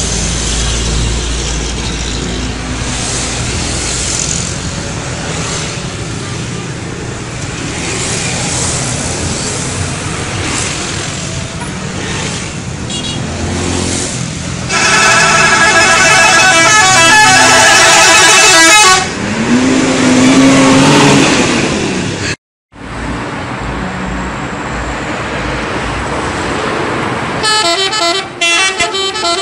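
Street traffic and a bus engine running, then a loud multi-tone telolet bus horn plays a rapid warbling tune for about four seconds. After a cut, traffic noise resumes and the horn tune starts up again near the end.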